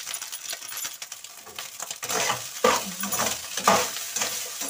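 A spoon stirring and scraping fried rice in a wok on a gas stove, with a light sizzle. The stirring grows louder about two seconds in: a run of scraping strokes against the pan.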